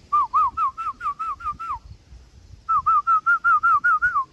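Two runs of quick, repeated whistled notes, about five a second, each note rising and then dropping; the second run starts after a pause of about a second.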